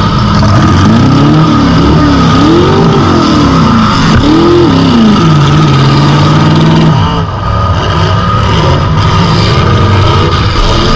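Demolition derby car's engine revving up and down in a series of quick bursts, then held at steady revs for about two seconds before dropping back, loud from inside the car's cab.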